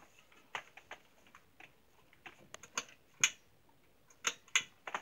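A string of small, irregular clicks and taps, about fifteen over a few seconds, with the sharpest a little past the middle and near the end.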